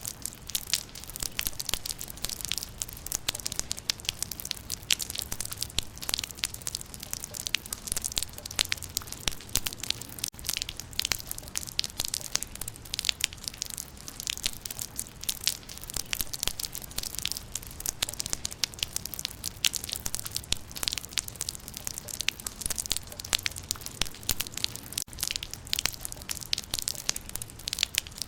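Rain falling on leaves: a dense, steady patter of many sharp drop hits, with a faint low rumble underneath.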